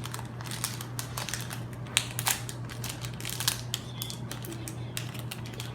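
A baseball card pack's wrapper crinkling and tearing as it is worked open by hand, in many irregular crackles and sharp clicks.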